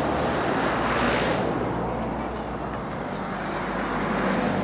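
Road traffic: a passing vehicle's noise swells about a second in and fades away, over a steady low drone.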